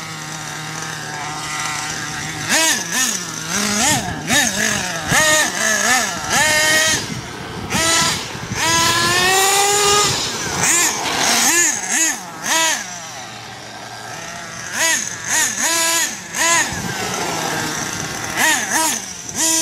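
Radio-controlled monster truck's motor revving in short repeated bursts, pitch jumping up and falling back, with one long rising run about halfway through and steadier running between bursts.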